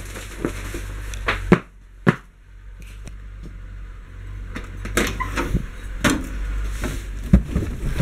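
A series of sharp knocks and clicks as a classic Alfa Romeo's door is opened and someone climbs into the driver's seat, over a low steady rumble that drops away for a couple of seconds.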